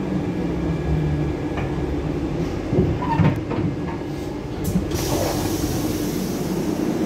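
Metro train running slowly alongside the platform, a steady low hum with a few knocks around three seconds in. About five seconds in a hiss of released compressed air starts and lasts nearly two seconds.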